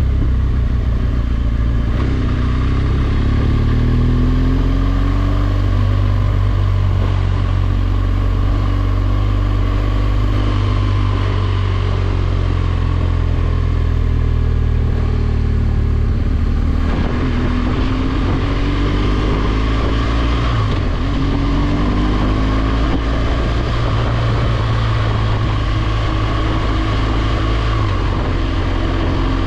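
BMW R1200GS boxer-twin engine running while riding, its pitch climbing twice as the rider accelerates. Wind rushing over the microphone runs underneath.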